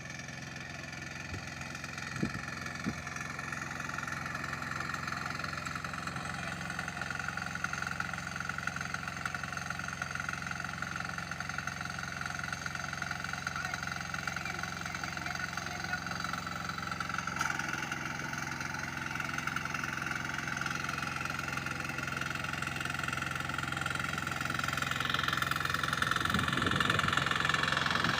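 Rice harvester's engine running steadily, growing gradually louder toward the end.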